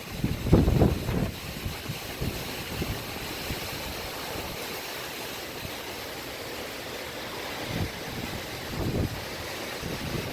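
Strong gusty wind of a thunderstorm gust front: a steady rush of noise, with heavy gusts buffeting the microphone in low rumbles in the first second and again twice near the end.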